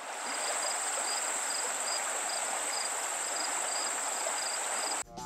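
Insects chirping over a steady hiss: a constant high buzz and a shorter chirp repeating about twice a second. It fades in at the start and is cut off abruptly near the end, where music begins.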